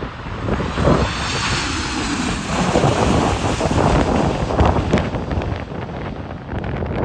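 Jet engines of a Ryanair Boeing 737 on final approach passing close overhead: a steady rush of engine noise with a faint high whine in the first few seconds. Heavy gusty wind buffeting on the microphone in 40–60 mph winds is mixed in.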